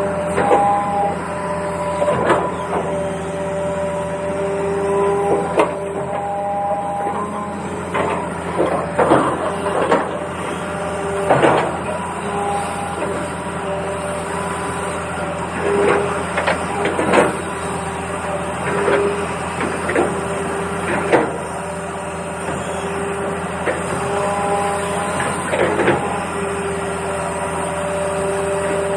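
Toy excavator's small electric motors and plastic gears whirring in starts and stops, with frequent clicks and knocks of plastic parts and stones.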